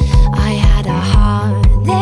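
Background music with a steady drum beat, about two beats a second, under held and gliding melody notes.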